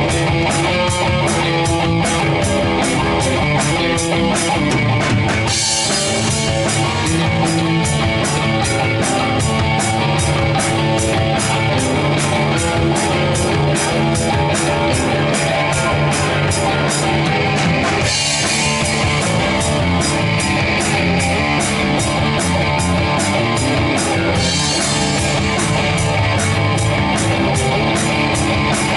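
Rock band jamming instrumentally: electric guitar over a drum kit, with a steady hi-hat or ride beat and cymbal crashes three times along the way.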